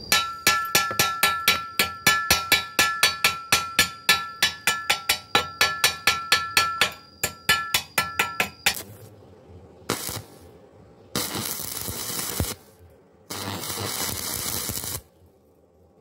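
Chipping hammer tapping slag off a freshly laid E6013 stick-weld bead on a steel square tube, about five quick strikes a second with the tube ringing on each hit. The tapping stops about nine seconds in, followed by a few separate bursts of hissing noise.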